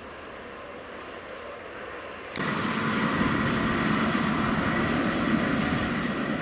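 A distant freight train of white tank wagons rolling past, a faint steady rumble. About two seconds in the sound jumps suddenly to a much louder, steady train noise with a thin high whine, as a red electric train moves away along the station track.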